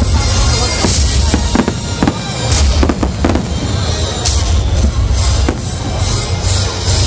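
Fireworks display: shells bursting in quick succession, many sharp cracks and bangs over a continuous deep rumble.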